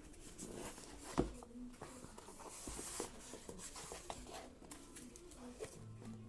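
Rustling and scratching of packaging being handled, with a sharp click about a second in and scattered smaller clicks.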